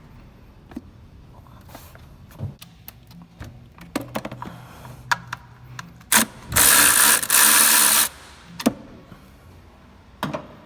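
A ratchet wrench loosening the hold-down bolt of an ignition coil on the engine, with scattered clicks and taps of tools on metal. About six and a half seconds in comes a loud run of rapid ratcheting lasting about a second and a half.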